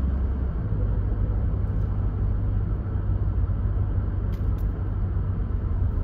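Car driving along a city road, heard from inside the cabin: a steady low rumble of engine and tyre noise.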